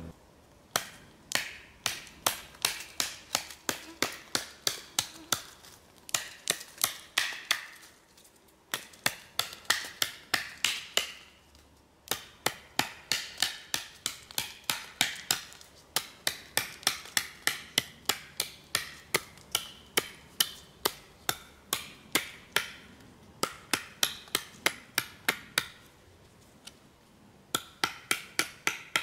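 A fixed-blade bushcraft chopper knife hacking into a wooden stick in quick repeated chops, about three or four a second. The chops come in runs of several seconds with short pauses between them.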